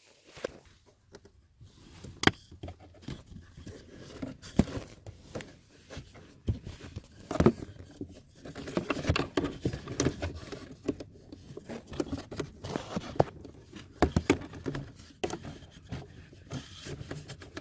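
A new pleated cabin air filter being worked by hand into its plastic housing behind the glove box of a 2017 Chevrolet Equinox: scraping and rustling of the filter against the plastic, with scattered clicks and knocks.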